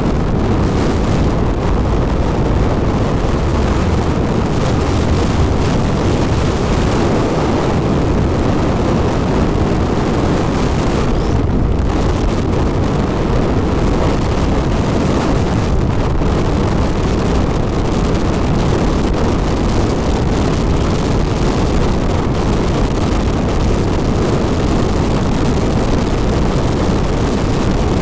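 Steady rush of wind over the microphone of a Hero XPulse 200 motorcycle riding at a constant speed, with the single-cylinder engine's sound buried beneath it.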